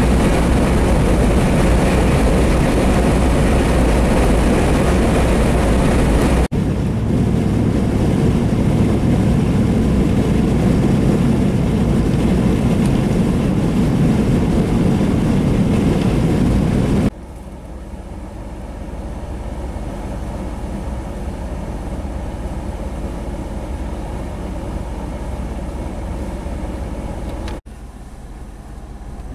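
Strong blizzard wind buffeting the microphone: a loud, steady rush with a heavy low rumble. It breaks off abruptly at shot changes about a quarter of the way in, a little past halfway and near the end, and is quieter after the second break.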